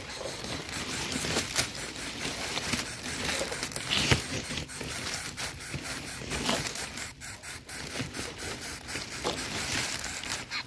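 Dry leaves and plant stems rustling and crackling close by as a hand pushes through the vegetation into a bird's nest, with irregular scrapes and small snaps.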